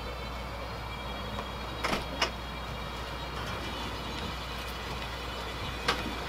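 A storm door being pushed open, with two short clicks of its latch and frame about two seconds in, over a steady low background hum. One more short knock near the end.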